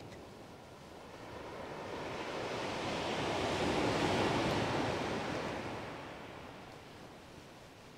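A wave on a shingle beach: a rush of surf that swells up about two seconds in, peaks near the middle and dies away.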